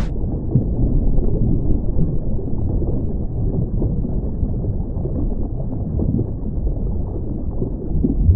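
Muffled underwater rumble and water noise, the dull sound an underwater camera housing picks up, with nothing high-pitched in it. It starts abruptly with a cut from brighter above-water sound.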